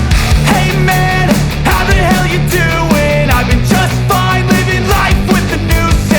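Loud background rock music with a steady beat and a melody line over it.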